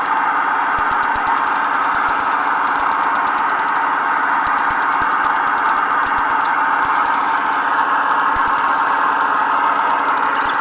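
Power grinder grinding the iron axe head: a steady, loud, high-pitched grinding sound of abrasive on metal, with a fine rapid crackle running through it.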